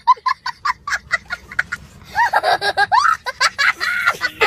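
A man's loud, hysterical laughter. For about two seconds it comes as a rapid run of short laughs, then turns into high squealing cries that rise and fall in pitch.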